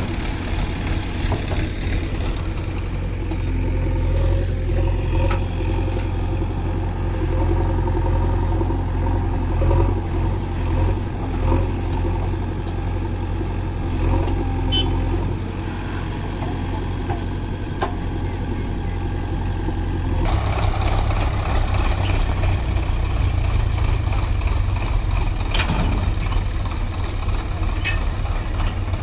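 Diesel engine of a JCB 3DX backhoe loader running steadily under load as it digs and loads soil into a tractor trolley. About two-thirds of the way through, the engine sound changes abruptly to a denser, rougher noise.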